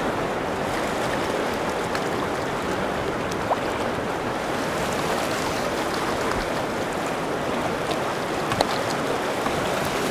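Steady rush of river current flowing and splashing past a raft, with a couple of small knocks.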